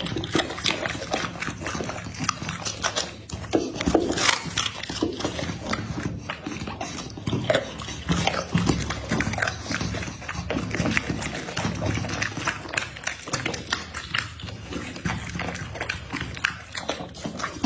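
Dog sounds, with many irregular short clicks and knocks throughout.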